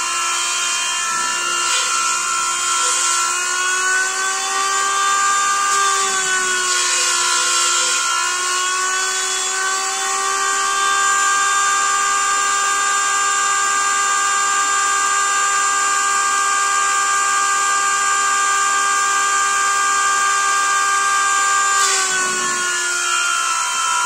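Homemade centrifugal high-pressure fan on a brushless motor running at about 23,200 rpm: a steady high whine with a rush of air, its pitch dipping briefly twice, around six seconds in and near the end. The fan is being run for a pressure test with its impeller clearances still wide.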